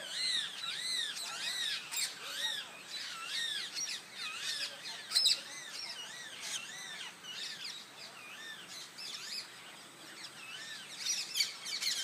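Parrots calling: a steady run of high-pitched, arching screeches, about two a second, with several birds joining in overlapping calls near the end.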